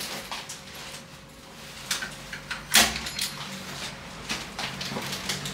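Scattered clicks and knocks, the loudest about three seconds in, over a faint steady low hum.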